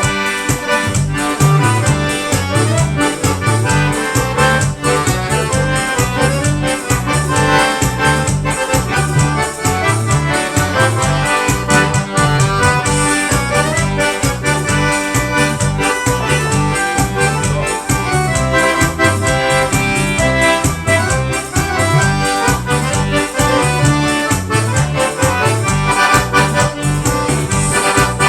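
Live instrumental forró: an accordion plays the melody in chords over a pulsing bass line in a slow rastapé rhythm.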